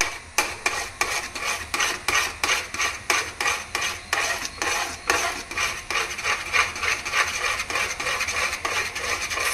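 A flat spatula is stirring thick wheat-flour halwa batter in a pan over a medium flame, scraping around the bottom and sides in quick, even strokes, about four a second. The batter is still wet and has not yet pulled away from the pan.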